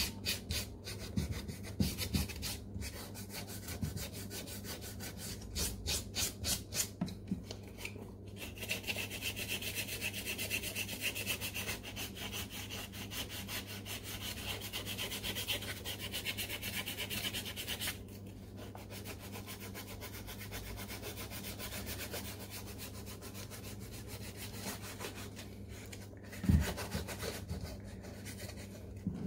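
Sandpaper rubbed by hand over the leather toe box of a Nike SF Air Force 1 sneaker, lightly roughing up the surface so paint will hold. Quick back-and-forth strokes at first, then steadier rubbing that grows softer, with a short thump near the end.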